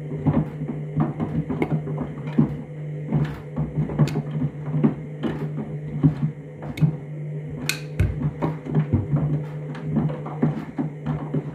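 Candy washing machine on its trainers cycle, main wash: the motor turns the drum with a steady hum while the load sloshes and knocks irregularly against the drum, with one sharper knock about eight seconds in.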